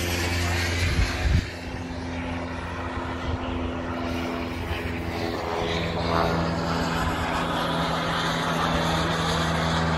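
Radio-controlled model aircraft flying overhead, a steady engine drone whose high part sweeps as the planes pass. Two brief low thumps come about a second in.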